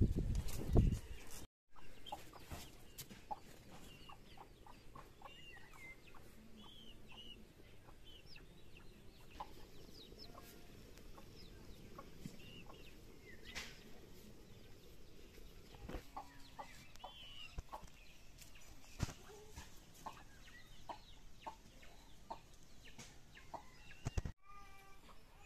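Faint clucking of chickens and short, scattered chirps of birds, with light clicks here and there. A few loud low thumps come in the first second and a half.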